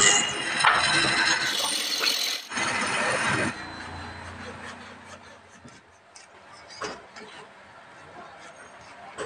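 Lathe chisel cutting into a spinning wooden leg, a loud rough scraping for about three and a half seconds. Then it goes much quieter, with only a few light knocks and clicks.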